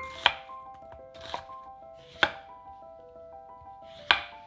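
Chef's knife chopping onion and then a lemon on an end-grain wooden cutting board: four sharp knocks of the blade on the board, about a second or two apart, the second much softer than the others.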